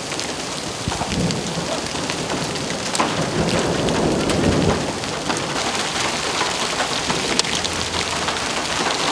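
Heavy downpour of rain mixed with hail: a dense, steady rush of noise studded with many sharp hailstone impacts.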